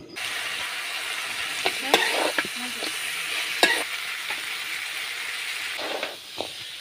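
Food sizzling steadily as it cooks, with a few sharp clicks and scrapes of it being handled.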